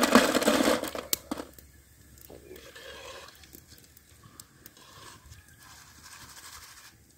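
Crisp fried banana chips rattling and scraping in a wire skimmer as they are lifted from the hot oil and tipped onto a plate, loud for about the first second and a half. Their dry rattle is the sign the chips are fried crisp. After that, soft sizzling with small crackles from the frying oil.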